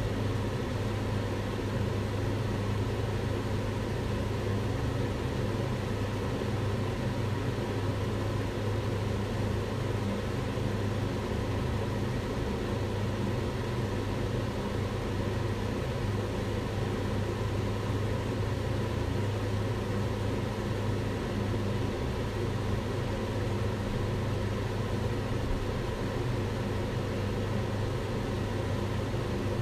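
Kitchen range hood fan running steadily: an even rush of air over a low motor hum, with no change.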